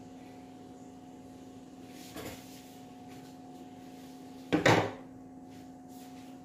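A steady hum, broken by two knocks: a soft one about two seconds in and a louder, short one about four and a half seconds in.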